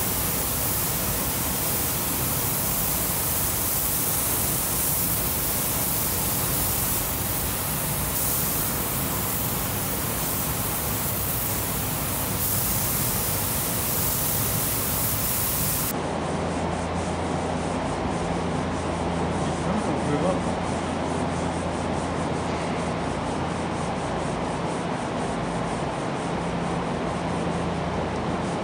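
Steady hiss of air spray guns painting car body panels in a spray booth. About sixteen seconds in it cuts abruptly to the rubbing strokes of a hand sanding block on a grey-primed body panel of a 1994 Toyota Land Cruiser, over a low steady hum.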